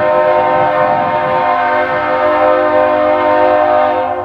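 Diesel freight locomotive's air horn sounding one long blast, several notes held together as a chord, cutting off about four seconds in, with the train's rumble underneath.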